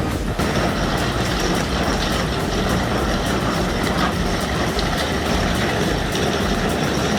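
Heavy diesel machine running steadily under load, with a faint, even rhythm of ticks.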